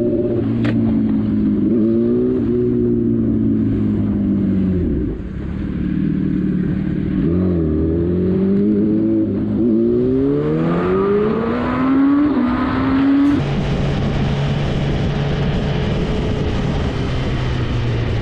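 Motorcycle engine heard from the rider's seat, its revs rising and falling through city traffic and then climbing through several gears. About 13 seconds in it changes to a Kawasaki ZX-10R's inline-four running at a steady pitch with a rushing hiss over it.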